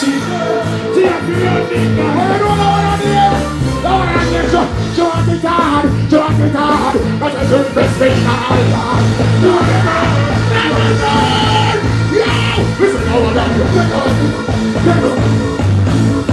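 Live reggae band playing loud through a stage sound system, with a singer's voice over it.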